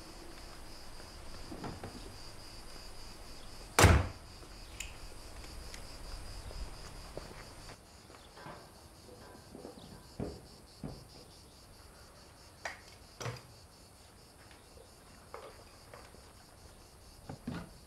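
The front bonnet of a BMW i3 shut by hand with a single sharp thud about four seconds in. This is followed by faint clicks and light footsteps on concrete as a charging cable is handled.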